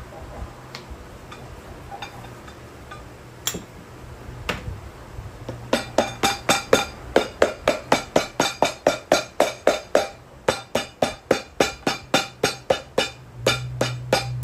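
Cobbler's hammer tapping on a glued layer laid over the bottom of a leather boot. It starts with a few scattered knocks, then about six seconds in comes a fast, even run of blows at about four a second, with a short break in the middle.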